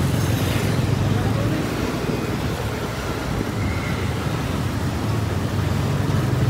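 Motor scooter engine running steadily under way, mixed with the steady road noise of surrounding city traffic (cars and other motorcycles).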